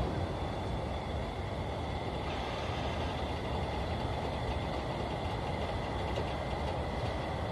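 A hot-air balloon's propane burner blast cutting off right at the start, then an even, steady background noise with a faint thin high tone while the balloon drifts with the burner off.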